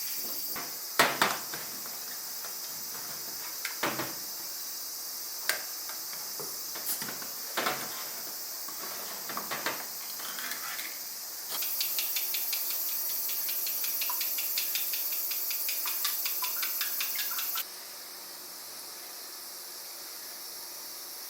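Scattered knocks and clinks of dishes and utensils being handled over a steady high hiss. Midway there are several seconds of fast, high ticking.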